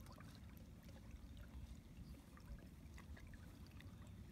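Faint water lapping and trickling against the hull of a slowly trolling boat, with a low steady rumble underneath and scattered small ticks.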